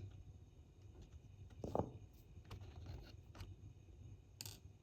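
Faint small clicks and scrapes of an X-Acto chisel blade prying the plastic horn off a model locomotive, with a stronger scrape a little under two seconds in and a sharp click near the end.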